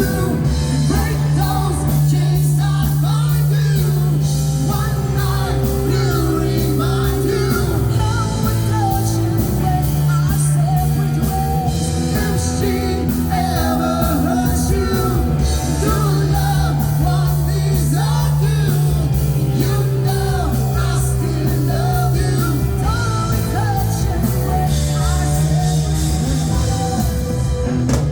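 Live pop-rock band playing with a singer, bass, guitar and drums.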